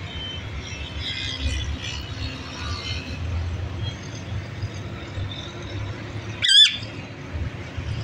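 Rose-ringed parakeet giving one short, loud, wavering screech about six and a half seconds in, with a few faint chirps in the first three seconds over a low background rumble.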